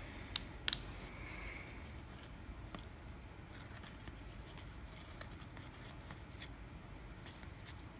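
1999 UD Choice baseball cards being handled and flipped through by hand: faint card-on-card sliding with a few light clicks, the two sharpest within the first second.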